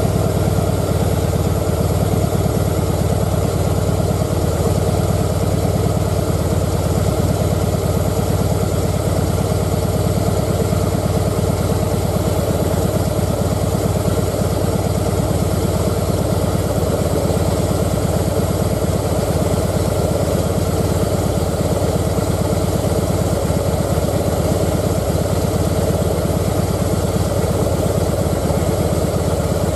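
Harley-Davidson Breakout (FXSB) V-twin engine idling steadily once warmed up, its idle being lowered from about 1,100 rpm to just over 1,000 rpm.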